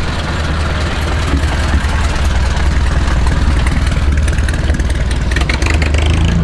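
A vehicle engine idling with a steady, deep low rumble.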